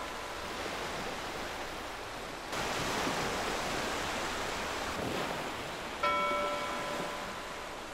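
Steady wash of sea-like noise, growing louder about two and a half seconds in, with a bell struck once about six seconds in that rings for about a second.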